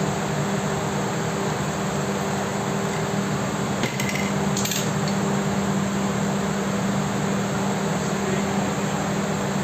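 A steady machine hum over a constant hiss, with a faint click and a brief higher-pitched rattle about four seconds in.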